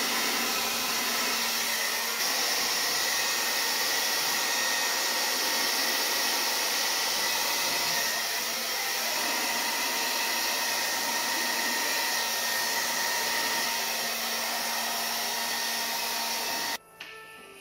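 Hair dryer blowing steadily at full power, used to push and spread wet pour paint across a canvas; it cuts off suddenly near the end.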